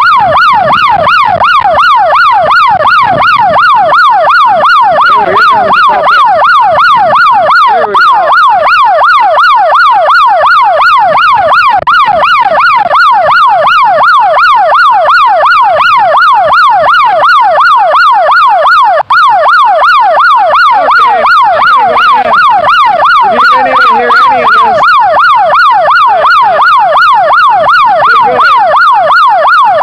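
A loud siren-like electronic warble: a rising sweep, repeated evenly three to four times a second.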